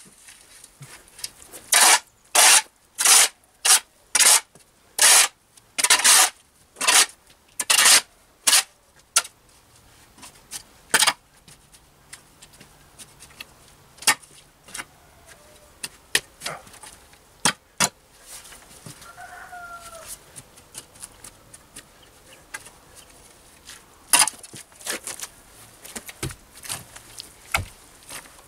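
A shovel blade scraping loose soil across concrete paving slabs. A quick run of strokes, nearly two a second, comes in the first several seconds, then scattered scrapes and taps, and another short run near the end.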